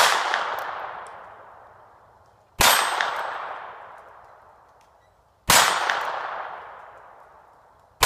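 Four shots from a North American Arms .22 Long Rifle mini revolver, about two and a half to three seconds apart. Each shot is followed by the ringing clang of a hit steel plate target, which dies away slowly.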